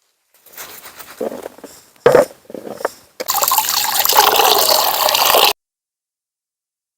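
A few short knocks, then liquid pouring steadily for about two seconds before it cuts off abruptly.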